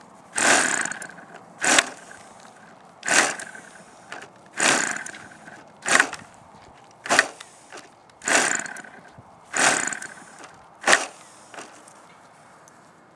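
Small gas engine of an RC plane being cranked over again and again in attempts to start it: about nine short rasping bursts a second or so apart, some with a fading tail, and the engine never catches and runs.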